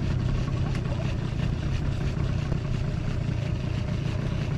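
A boat motor running steadily at low speed: an even, low hum.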